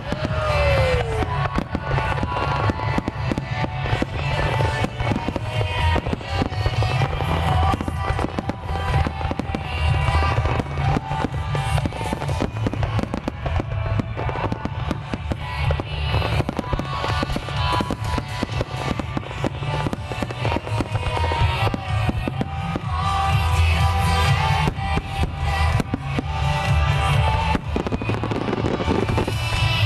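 Wide star mine fireworks display: a dense, continuous barrage of shells bursting and crackling, with music playing along. A falling whistle is heard just after the start.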